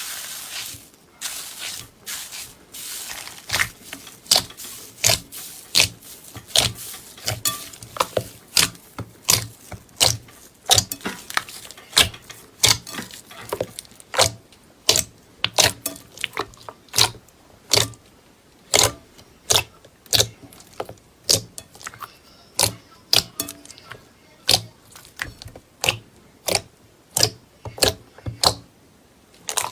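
Slime being pressed and played with by hand, giving sharp pops and clicks about one to two a second, more crackly and continuous in the first few seconds.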